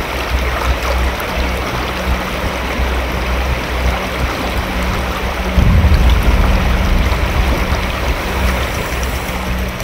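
Fast-flowing river water rushing past rocks, under low, pulsing background music that swells about halfway through.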